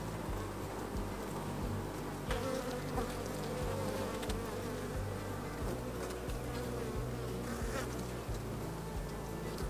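Honey bees buzzing around an open hive. About two seconds in, one buzz grows louder and wavers in pitch for several seconds, with a few light clicks.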